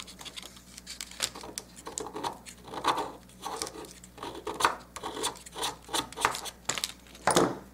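A red chalk pastel stick scraped against a paper plate to shave off coloring powder: a quick, uneven run of short scratching strokes, with one louder stroke near the end.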